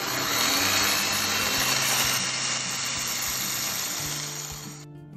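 Corded electric drill boring into the steel tube of an engine stand, running for about five seconds and then stopping near the end.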